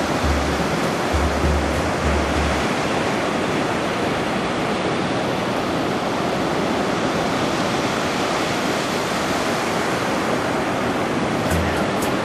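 Steady hiss of surf washing on a sandy beach. Background music with low bass notes is heard in the first couple of seconds and again near the end.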